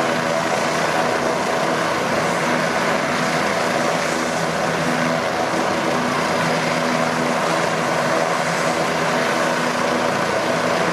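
AgustaWestland AW169 helicopter running, its twin Pratt & Whitney Canada PW210A turboshaft engines and rotors making a steady noise that holds the same pitch and level throughout.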